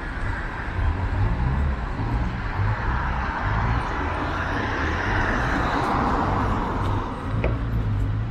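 Road traffic on a city street: a vehicle passes, its noise swelling over a few seconds and fading, over a steady low rumble of traffic. A short click sounds near the end.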